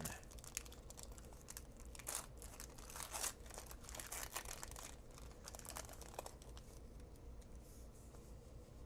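Faint crinkling and tearing of a trading-card pack's wrapper being torn open by hand, in short scattered rustles that are busiest a couple of seconds in.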